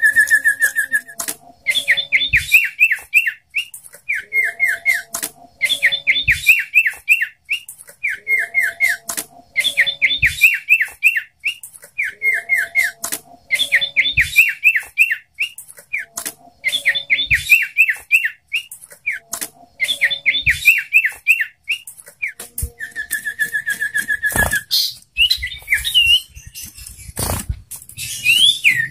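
A sirtu (cipoh) songbird singing. It repeats a phrase about every two seconds: a quick run of high, down-slurred whistled notes in the bird's 'trucukan' song variation. A long steady whistle opens the song and comes again near the end, where the notes become more varied. Sharp clicks are scattered throughout.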